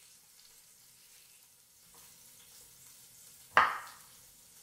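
Faint sizzle of a beef roast searing in an Instant Pot on sauté, then one sharp chop of a chef's knife through a carrot onto a wooden cutting board about three and a half seconds in.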